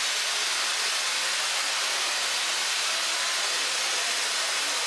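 Steam locomotive venting steam: a steady, dense hiss.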